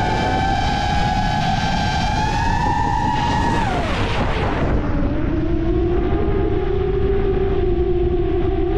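FPV racing quadcopter's brushless motors and propellers whining, the pitch falling steeply about four seconds in as the throttle comes off, holding low, then climbing sharply back up near the end as power is added again. A steady rumble of wind noise runs underneath.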